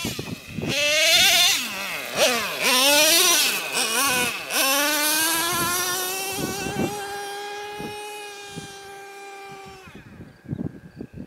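Traxxas Revo 3.3 nitro RC truck's small two-stroke glow engine revving up and down sharply for the first few seconds, then holding a steady high-pitched whine at speed that fades as the truck drives off, gone by about ten seconds in.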